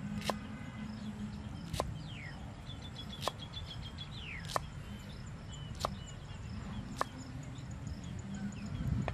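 Knife chopping green vegetables on a round wooden cutting board: six sharp strikes, about one every second and a quarter.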